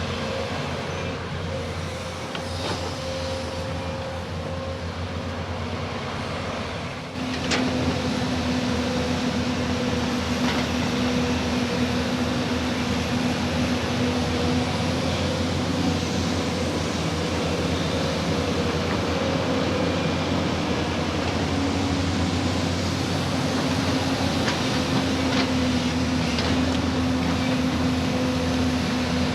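Diesel engine of heavy earthmoving machinery running steadily with a low drone, growing louder about seven seconds in.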